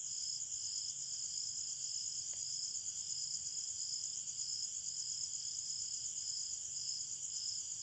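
Insects chirring: a steady high-pitched trill that pulses about twice a second.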